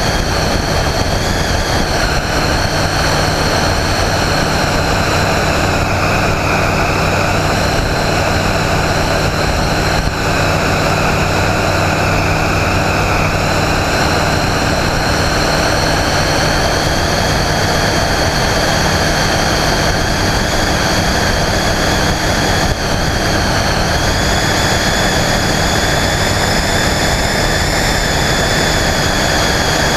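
Flight Design CTSW light aircraft in flight: its Rotax 912 four-cylinder engine and propeller drone steadily, heard from outside the cabin with the rush of the airstream. The pitch shifts slightly now and then.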